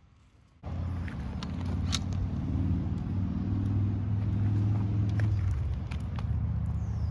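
An engine running steadily, starting abruptly about half a second in, with scattered light clicks over it.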